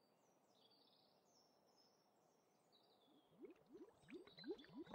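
Liquid gurgling and bubbling in a cauldron, starting about three seconds in and growing louder, over faint bird chirps.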